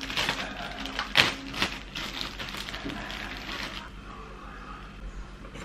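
Plastic bread bag rustling and crinkling as it is opened and slices are pulled out, with a few sharper crackles; the rustling stops a little before four seconds in.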